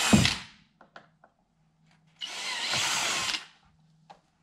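Cordless drill with a 3/16-inch bit drilling out the guide holes in a front splitter, in short runs. One run stops about half a second in, and another runs from a little after two seconds to about three and a half seconds, with a few small clicks between.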